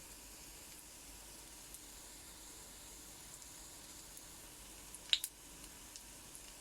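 Pancake batter sizzling faintly in a frying pan, a steady soft hiss, with two sharp clicks close together about five seconds in.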